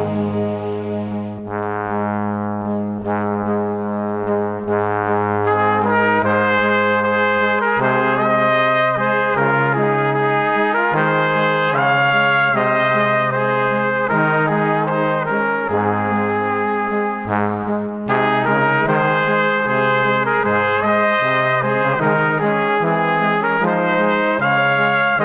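Background music led by brass, with held low notes beneath a melody that grows fuller about five seconds in.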